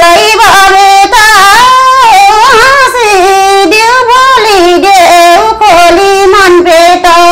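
A woman singing a Nepali folk song unaccompanied, loud and close, with long held notes and sliding, ornamented turns between them; one long held note comes near the end.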